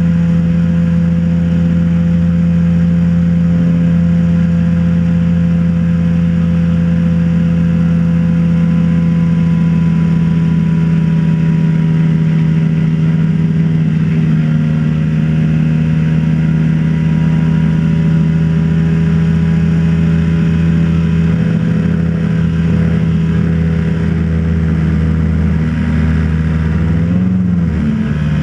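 Motorboat engine running steadily at a constant speed, with a brief dip and recovery in its pitch near the end.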